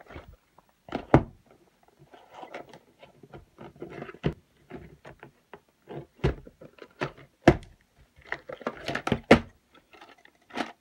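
A VHS cassette in its plastic clamshell case handled on a wooden table. There are several sharp plastic clacks and knocks against the wood as the case is turned over and opened, with light scraping and rattling in between. The loudest knocks come about a second in and again between about six and nine and a half seconds.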